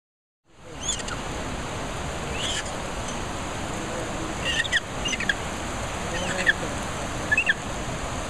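Steady rush of a mountain river's rapids, cutting in after a brief silent gap at the start. Short high-pitched chirping calls break through it several times, in ones and twos.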